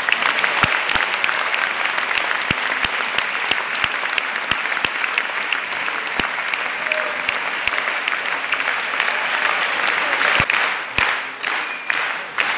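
Large audience applauding in a concert hall: a dense, steady patter of clapping with a few individual sharp claps standing out.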